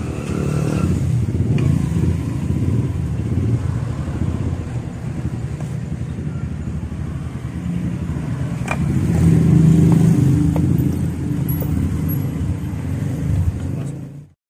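Honda Megapro's single-cylinder four-stroke motorcycle engine running, with a rise in revs about nine seconds in. It cuts off abruptly near the end.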